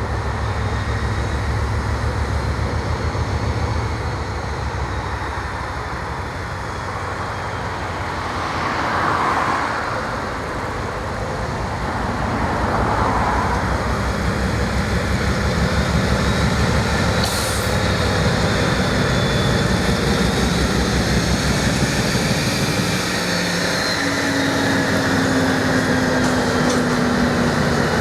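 British Rail diesel locomotive engine running with a steady low throb, from the Class 56 and Class 50 pair working together.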